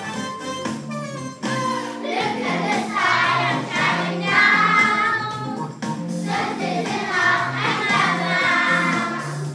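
Children singing a song over musical accompaniment. The accompaniment plays alone at first, and the voices come in about two seconds in.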